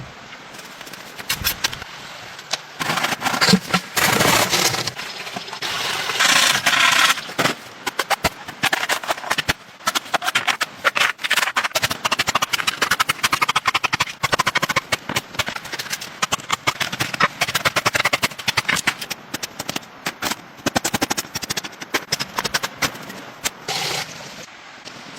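Rapid, irregular knocking and clicking, many strikes a second, with stretches of scraping between them.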